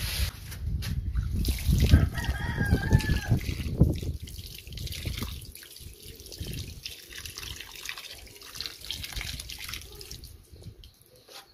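Water splashing by hand onto freshly potted soil in a plastic pot, a busy spatter and slosh, loudest in the first few seconds and then thinning out. A rooster crows briefly in the background about two seconds in.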